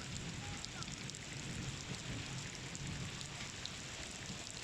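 Steady rain falling, an even hiss with scattered ticks of drops striking nearby surfaces.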